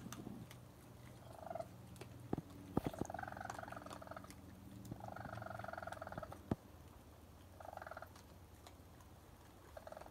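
Young raccoons chirping while feeding: a series of trilling, purr-like chirps, two of them drawn out for more than a second. A few sharp knocks are mixed in.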